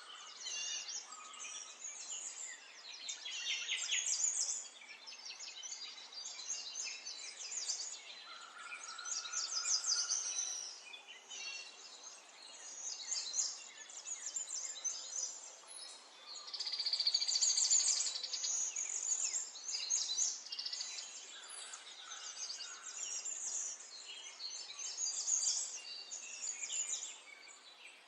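Many small birds chirping and twittering at once, a dense chorus of short high chirps and trills that swells and fades every few seconds.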